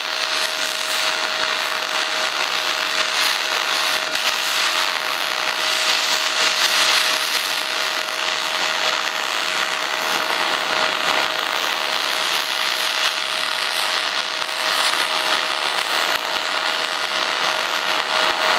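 MIG welding arc running a continuous bead of 0.047-inch aluminum wire on a cast-aluminum light pole base: a steady crackling hiss with a faint steady high tone under it.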